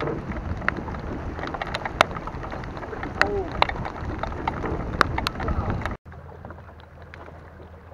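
Rain falling on and around a canoe on open water: a steady patter with many sharp, close raindrop taps. About six seconds in it cuts off abruptly to a quieter steady low hum.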